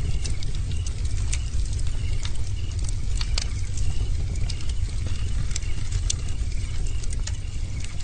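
Wood fire crackling, with irregular sharp pops and snaps over a steady low rush of flames. Short chirping calls repeat every second or so behind it.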